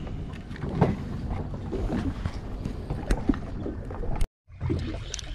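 Low steady hum of a boat's engine idling at sea, with wind on the microphone and scattered small knocks. The sound drops out briefly about four seconds in.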